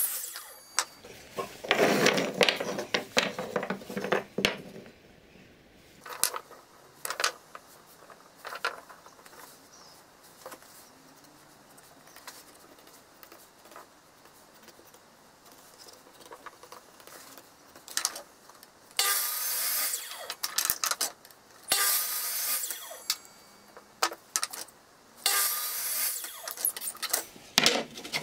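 A sliding mitre saw cutting through a wooden block for about two seconds, followed by light knocks of small wooden blocks being handled on a bench. Near the end come three short scratchy bursts.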